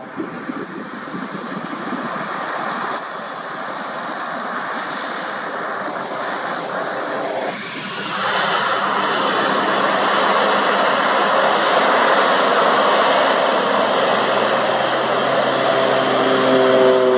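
A floatplane's propeller engine running at takeoff power on its water run, getting louder about halfway through and staying loud. Near the end its pitch drops as it passes.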